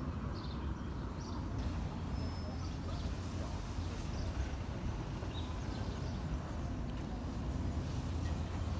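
Outdoor ambience: small birds chirping faintly, with one brief high whistled note about two seconds in, over a steady low rumble.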